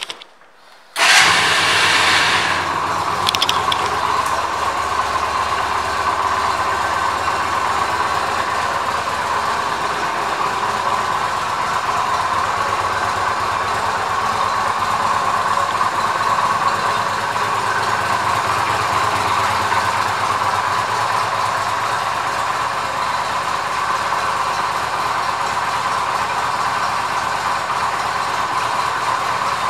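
Yamaha V Star 250's small air-cooled V-twin engine starting about a second in, catching at once, then idling steadily.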